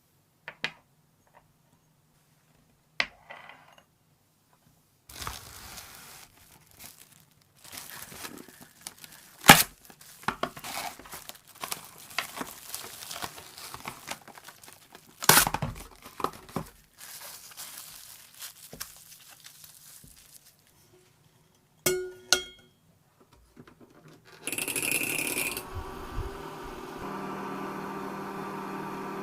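Handling noises of rustling and crinkling, with several sharp knocks and clicks. About 24 seconds in, a short hiss, then a small machine starts a steady hum.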